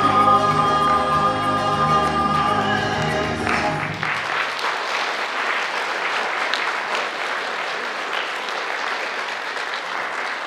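A women's vocal trio sings the end of a song, holding the final chord until it stops about three and a half seconds in. Audience applause then follows and carries on.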